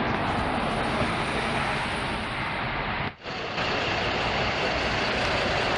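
City bus driving past close by: steady engine and tyre noise. The sound breaks off briefly about three seconds in, then another city bus is heard running as it pulls away.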